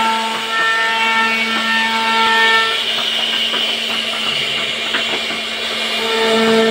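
CNC router spindle running with a steady whine while its bit carves a wooden door panel, with a scratchy cutting noise throughout. The whine weakens in the middle and comes back near the end.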